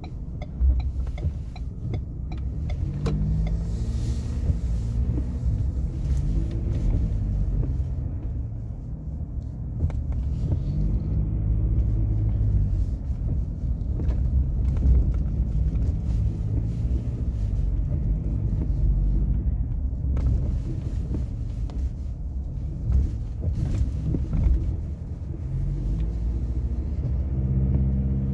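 Ford Ranger Wildtrak pickup driving, its engine and road rumble heard from inside the cabin, with the engine note rising and falling with speed. A light ticking sounds in the first couple of seconds.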